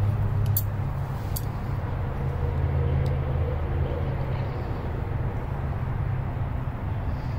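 A steady low engine-like hum in the background, with a few light clicks in the first three seconds as small carburetor parts are handled and fitted.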